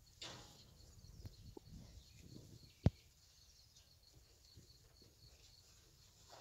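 Faint rustling and shuffling of fighting bulls feeding in a straw-covered pen, with one sharp knock about three seconds in. A faint high chirp repeats steadily throughout.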